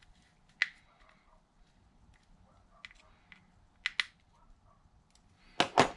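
Small metal tools clicking and tapping against the metal side plate and screws of an Abu Garcia 6500 C3 baitcasting reel during reassembly. The clicks are scattered and few, and a louder quick cluster of knocks comes near the end.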